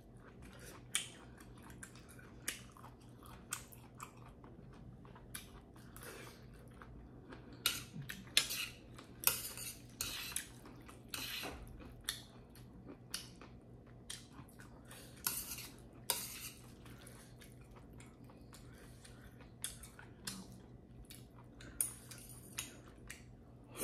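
Metal utensils clinking and scraping against a stainless steel pan and a ceramic bowl while noodles are served and eaten. The clinks are short and sharp and come at irregular intervals, thickest in the middle stretch, over a faint low hum.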